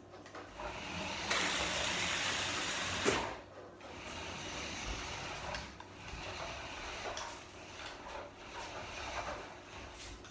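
Toy RC car driving across the floor, its electric motor and wheels whirring: a loud run starting about a second in that ends with a knock, then shorter, quieter runs.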